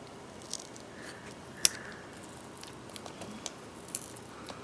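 Faint small clicks and a light crackle of Scotch tape being peeled back from a laptop LCD panel, with one sharper click about one and a half seconds in.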